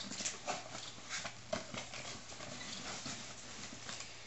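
Hands handling a cardboard shipping box and its packing: soft, irregular taps, knocks and rustling.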